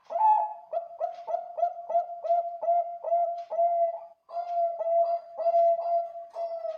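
Bangkok-bred perkutut (zebra dove) singing its cooing song: a fast run of short, clipped coos, about three a second, with a brief break about four seconds in.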